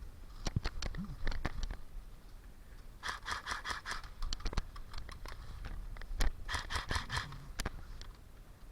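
Airsoft gun fire: a few single clicking shots, then two short bursts of rapid clicking shots, the second near the end.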